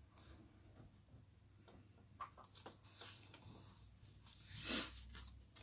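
Faint rustling and light ticks of cardstock as a stamped card layer is handled and pressed down onto a glued black mat, with one louder brief swish of paper near the end.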